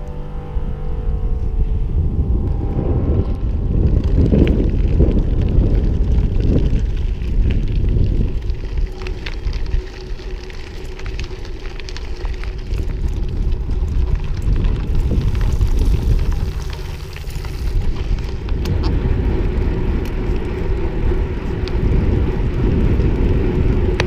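Wind rumbling over the microphone of a moving bicycle, with tyre noise on the path; the rumble swells and eases.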